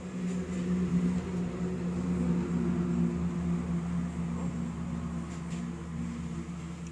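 A steady motor hum, growing louder about a second in and easing off toward the end.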